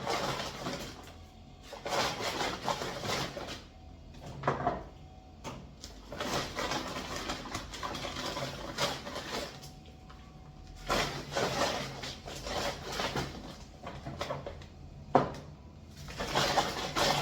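Groceries being handled, rustling in several separate bursts, with one sharp knock about fifteen seconds in.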